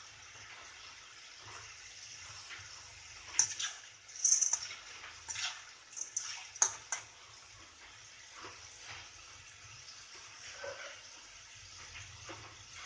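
Green peas deep-frying in hot oil in a wok, a steady faint sizzle. From about three to seven seconds in, a metal slotted spatula stirs them, scraping and clinking sharply against the pan several times.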